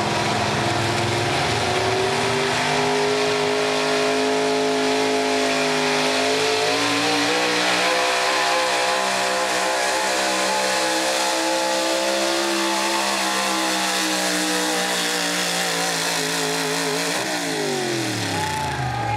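Modified Chevrolet 4x4 pulling truck's engine running at high revs under full load as it drags a weight-transfer sled. The pitch climbs over the first few seconds, holds high, then drops sharply near the end as the throttle comes off.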